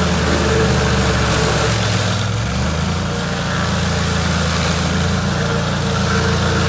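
Chainsaw engine running steadily, its pitch dipping briefly about two seconds in before settling back.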